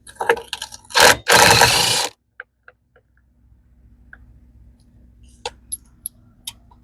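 Cordless power driver zipping out a skid-plate bolt on a side-by-side: a short burst, then a longer run of almost a second, ending about two seconds in. After it come a few scattered light clicks and taps.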